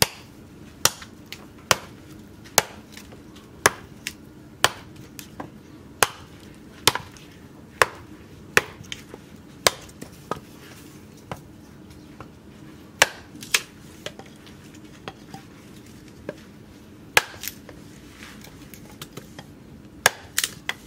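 Small axe chopping and hewing a stick of wood laid on a wooden block: sharp single chops about once a second, with longer pauses in the second half.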